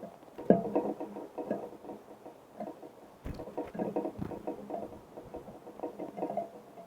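Small birds pecking and scrabbling at seed on a feeder close to the microphone: rapid, irregular tapping with two heavier thumps, about half a second and three seconds in.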